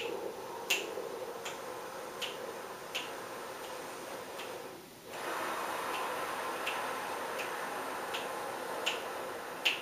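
A slow, steady inhale drawn past a hand held against the lips, making a soft suction hiss, for about five seconds. A brief gap follows, then a steady exhale onto an open hand for the rest. Sharp metronome clicks about every three-quarters of a second keep the counts throughout.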